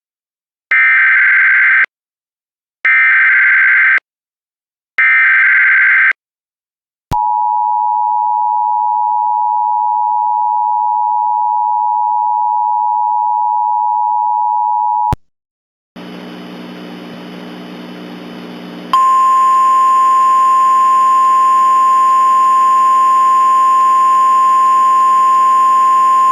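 Emergency Alert System tones. Three bursts of SAME header data tones, each about a second long, are followed by the two-tone EAS attention signal, held steady for about eight seconds. After a short gap a buzzy hum begins, and about three seconds later a louder steady single tone comes in over it and holds.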